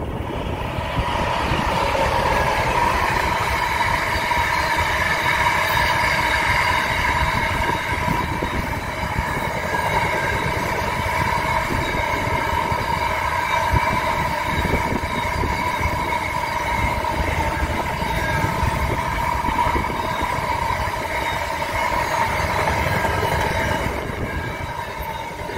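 Container freight train wagons rolling past close by, a steady rumble of wheels on rail with a sustained high ringing tone over it. The sound builds in the first second and then holds steady.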